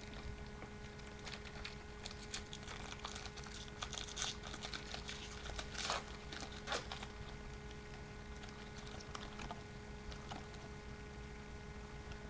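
Foil wrapper of a baseball-card pack being torn open and crinkled, quiet irregular crackling that is busiest in the middle few seconds, with light rustle from handling the cards.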